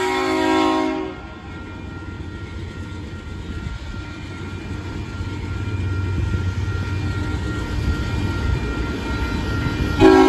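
Union Pacific diesel locomotive's air horn sounding for the grade crossing, cutting off about a second in. Then the low rumble of the approaching locomotive's diesel engine grows louder, and the horn sounds again just before the end.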